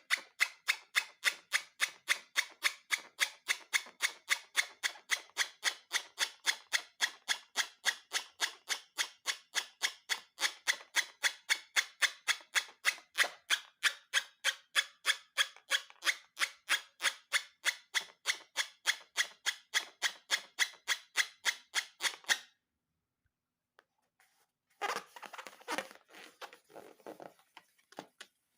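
A steady run of sharp snips or clicks, about three a second, that stops suddenly; after a short pause, some irregular rustling and crinkling follows near the end.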